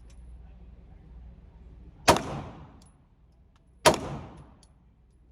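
Two gunshots about two seconds apart, each sharp crack followed by a short echo off the walls of an indoor shooting range.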